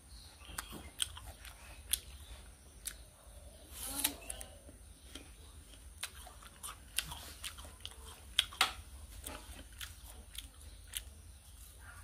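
A person chewing and biting crisp apple close to the microphone, with irregular sharp crunching clicks throughout.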